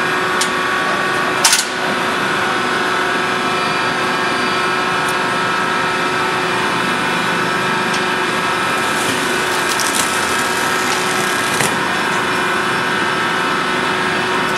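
Hydraulic tire-cutting machine running steadily, a hum of several tones from its pump and motor as the cylinder drives the blade through a giant tire. A single sharp crack about a second and a half in.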